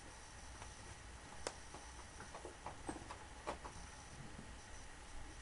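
Quiet room tone with a low hum, broken by a handful of faint, irregular small clicks and taps.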